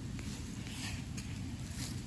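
Soft rustling of low leafy undergrowth as fingers push through it to reach a chanterelle, a few light swishes about a second in and near the end, over a steady low rumble on the microphone.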